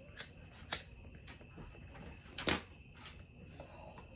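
A few light knocks or clicks, the loudest about two and a half seconds in, over a faint steady high-pitched tone.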